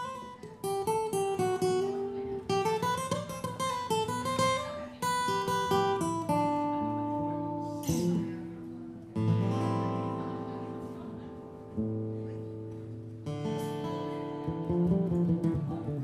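Two acoustic guitars playing an instrumental passage with no singing: quick picked notes and a moving lead line for the first six seconds or so, then strummed chords that are left to ring, struck afresh a few times.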